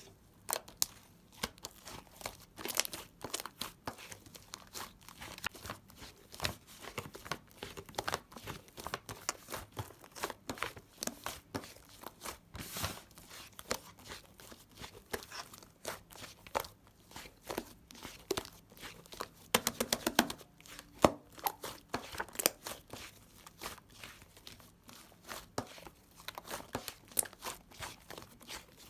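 Irregular crisp clicking and crackling handling sounds, with a cluster of louder clicks about two-thirds of the way through.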